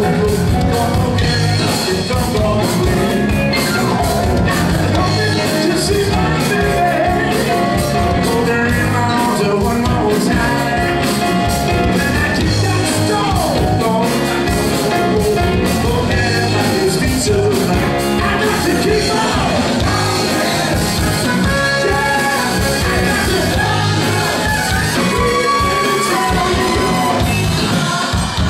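Live funk and soul band playing loud with a steady beat: a singer over electric guitars and drums.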